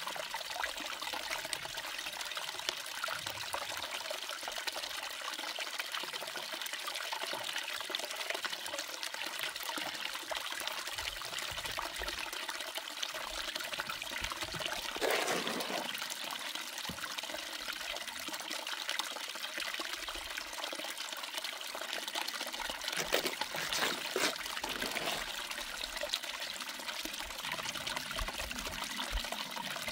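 Water running steadily down a small recirculating sluice box, with a few short louder sounds about halfway through and again a little later as paydirt is fed onto the riffles.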